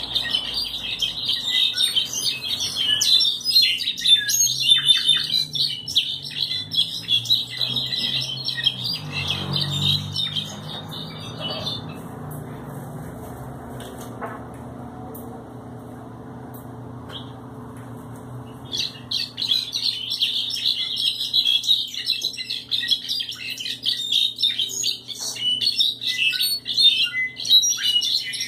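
Caged jilguero, a finch, singing a long, rapid twittering song; it falls silent for several seconds about midway, then starts singing again.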